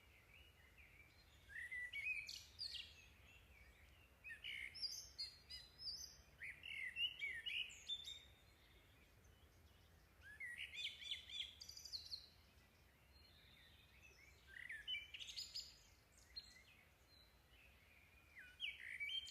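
Faint bird chirping, a cluster of quick high twittering notes coming in about five short bouts with quiet gaps between them.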